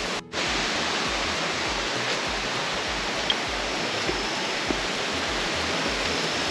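Running water rushing steadily, as from a jungle stream, cut off briefly just after the start.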